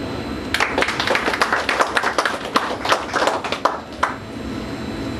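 Audience applauding with hand claps. It starts about half a second in and dies away about four seconds in.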